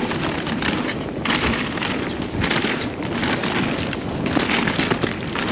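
Ride noise of a mountain bike on a rough, wet trail: wind buffeting the microphone and the bike rattling and thudding over roots and rocks, in repeated surges.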